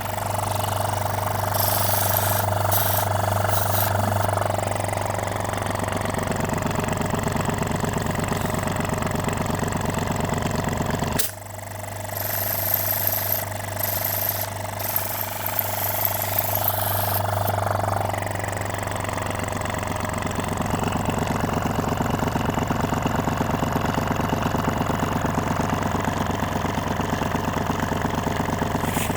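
Compressor running with a steady, rapid chugging hum. About eleven seconds in the sound dips suddenly for a moment, then carries on.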